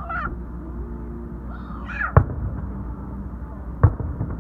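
Two aerial firework shells bursting, each a single sharp bang, about a second and a half apart.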